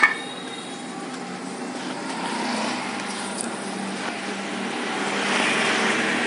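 A sharp clink at the very start, then a steady rushing background noise like distant traffic, which swells about two seconds in and again near the end.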